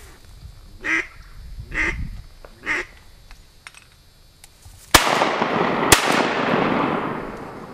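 Three short duck quacks, then two shotgun shots about a second apart, each with a long echo that slowly fades.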